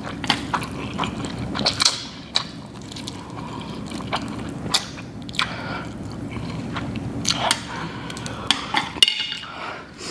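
Close-miked wet mouth sounds of eating spicy noodles: irregular smacks, clicks and slurps over a steady low hum.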